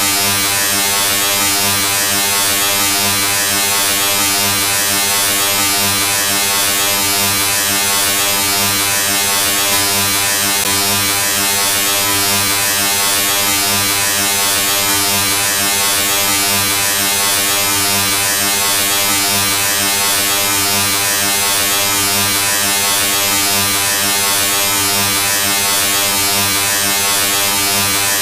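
A continuous, loud, harsh electric buzz that stays unchanged in pitch and level throughout, with a strong hiss on top.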